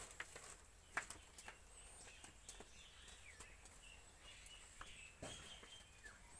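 Quiet ambience: a knife peeling ripe mangoes by hand, making a few faint scattered clicks and taps, the sharpest about a second in, with a few high bird chirps in the background.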